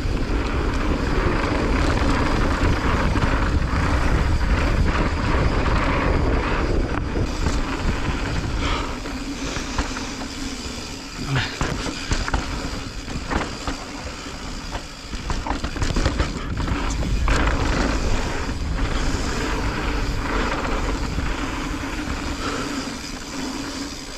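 Mountain bike descending a dirt singletrack at speed: wind rushing over the microphone and tyres rolling on dirt, with a run of sharp knocks and rattles from the bike over rough ground about halfway through.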